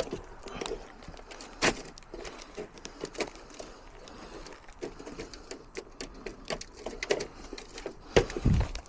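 Scattered light clicks and taps of hands working, with a sharper knock about two seconds in and a heavier thump near the end.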